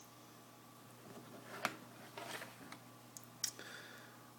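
Faint, scattered metal clicks and scrapes from a lock pick and tension wrench working in the keyway of a Sterling five-pin padlock. There are a few separate clicks, with a small cluster about halfway through and a sharper click near the end.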